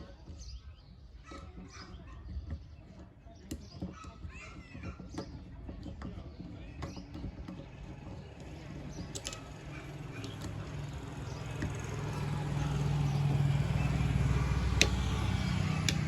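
Phillips screwdriver undoing the small screws of a 7-inch LED projector headlight's lens housing: scattered clicks and small squeaks of metal and plastic. A low rumble swells through the second half, with a sharp click near the end.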